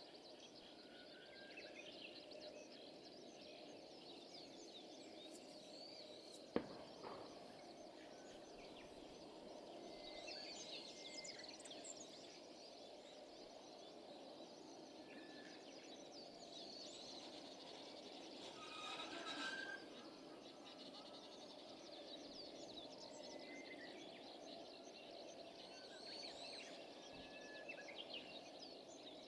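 Faint outdoor ambience of many small birds chirping here and there over a steady low background hum, with one sharp click about six and a half seconds in.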